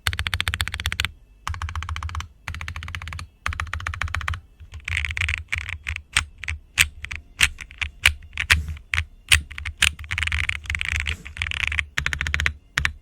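Typing on a QK80 tenkeyless mechanical keyboard with lubed and filmed Boba U4T tactile switches, an aluminium plate and PBT keycaps: rapid runs of keystrokes in short bursts, a stretch of slower, separate key presses in the middle, then another fast run near the end.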